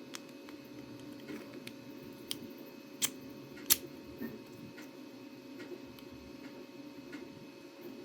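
Scattered light clicks and taps of hard plastic 3D printed parts being handled, with two sharper, louder clicks about three seconds in, over a steady low hum.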